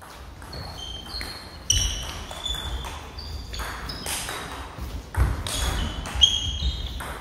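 Table tennis rally: a celluloid-type ball clicking back and forth off bats and table in quick succession, with short ringing after many hits. A few heavier thuds from players' feet on the wooden sports-hall floor come about five and six seconds in.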